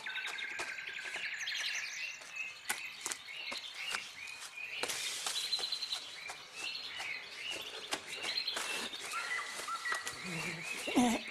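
Many small birds chirping and trilling in forest, with scattered sharp clicks. A short lower call sounds near the end.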